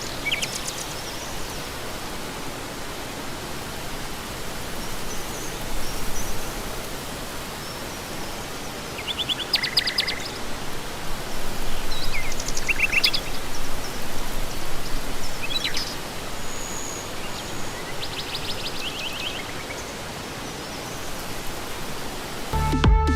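Steady outdoor hiss with birds chirping in short quick runs now and then. Music starts near the end.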